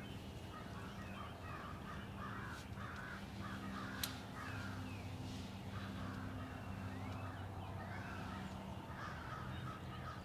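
Crows cawing in repeated series, over a steady low hum, with one sharp click about four seconds in.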